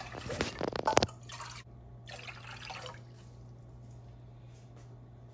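Cold water poured from a glass measuring cup into a stainless steel saucepan, splashing mostly in the first second, with a few softer splashes after it.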